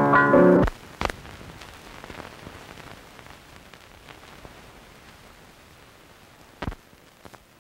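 Piano music cuts off about half a second in, leaving the faint hiss and crackle of an old film soundtrack, with a sharp pop about a second in and another near the end.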